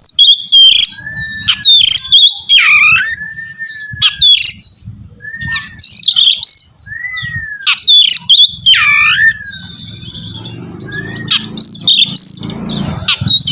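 Oriental magpie-robin (kacer) singing a loud, varied song of quick whistled phrases, rising and falling glides and sharp calls, easing off briefly about two-thirds through, over a low hum that swells near the end.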